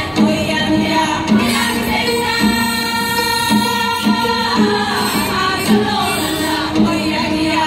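A group of singers in unison with an ensemble of janggu (Korean hourglass drums). The drums keep a steady beat with a strong stroke about once a second.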